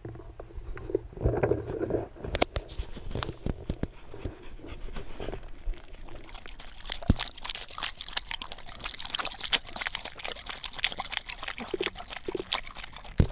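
A German shorthaired pointer drinking water poured from a bottle into its mouth: quick wet lapping and splashing clicks, thickest in the second half.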